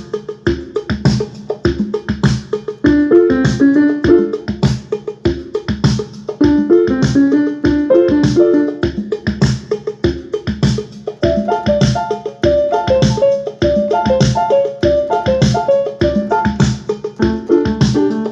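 An S-Engine sound module playing one of its built-in drum-machine rhythms at a steady beat, with keyboard notes in a piano-like voice played over it.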